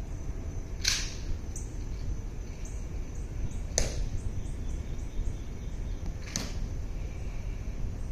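Three sharp, crisp clicks a few seconds apart, carried across open ground from the Tomb Guard soldiers' drill during the ceremony, over a faint low outdoor rumble.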